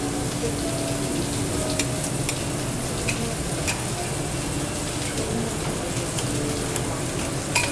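Food sizzling steadily on a teppanyaki iron griddle, with a few sharp taps of metal spatulas on the plate, the loudest near the end.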